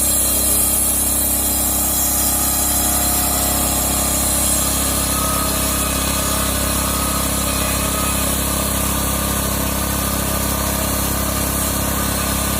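Engine-driven homemade circular sawmill running steadily, its blade cutting through a squared log on a slow crank feed.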